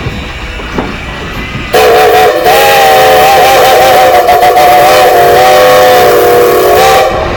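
A train's multi-chime whistle sounding one long blast of about five seconds: a loud, steady chord of several notes with a breathy hiss. It starts about two seconds in and cuts off sharply near the end.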